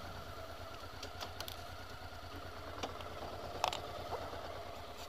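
Motorcycle engine idling with a low, even beat. A few light clicks sound over it, the sharpest a little past halfway.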